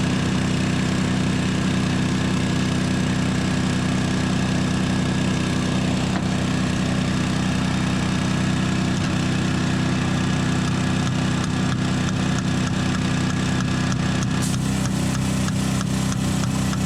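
An engine idling steadily with an even hum. Near the end a rapid, regular clicking of about four or five a second joins it.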